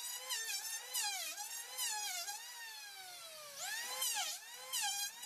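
Hand-held electric planer running along the edge of a wooden plank. Its motor whine repeatedly drops in pitch as the blades bite into the wood and rises again as they come free, with one long slow sag in the middle.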